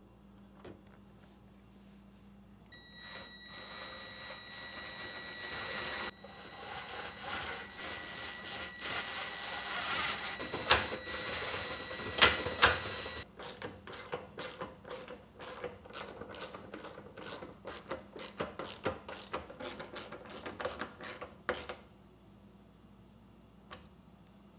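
Cordless impact driver running with a steady whine and a few sharp knocks as it drives in fasteners. It is followed by a quick run of metallic clicks, about three or four a second, that stops suddenly.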